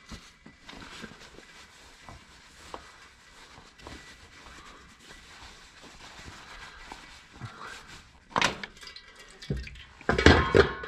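Used diesel engine oil dripping and trickling from a loosened oil filter into a drain pan, with light rag and handling noises. Two louder bursts of splashing and handling noise come about eight seconds in and near the end, as the filter is spun off and oil runs out of it.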